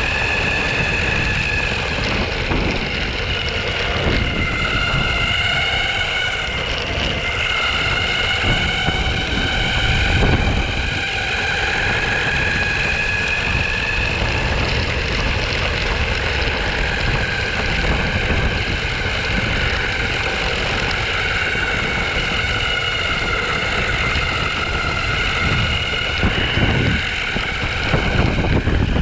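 Onsra Black Carve belt-drive electric skateboard under way: a steady high whine from its motors and belt drive that drifts slowly up and down in pitch with speed, over a constant low rumble.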